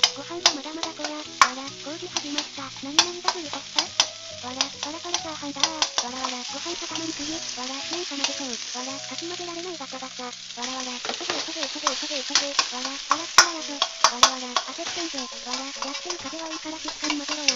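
Fried rice being stir-fried in a wok over a gas flame: a steady sizzle, with frequent sharp clacks of the ladle striking and scraping the wok.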